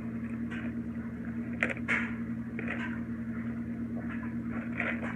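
A steady low hum runs throughout, with a few short soft noises of eating (chewing and handling food) about one and a half to two seconds in and again near the end.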